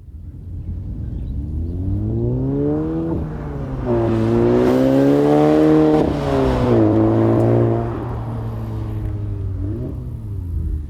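VW Golf R's turbocharged four-cylinder engine through an AWE SwitchPath aftermarket exhaust, accelerating hard: the engine note climbs, drops about three seconds in, climbs again to its loudest, drops near seven seconds, and then eases off.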